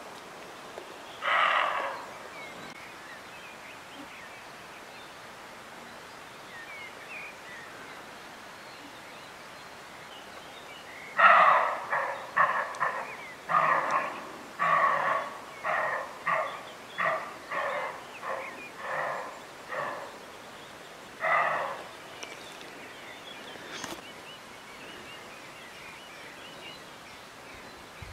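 Roe deer barking, its harsh alarm call: one bark about a second in, then a long run of about fifteen barks roughly one every half second, slowly getting fainter, and one last bark near the end.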